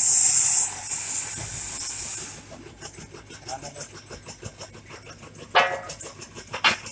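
Tobacco shredding machine cutting rolled tobacco leaves. A loud high hiss for about the first two seconds, then quieter running with a fast, even ticking, and two short loud rasping bursts near the end.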